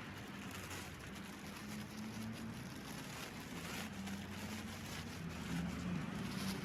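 A steady low engine hum that wavers slightly, with faint scratchy rustling throughout.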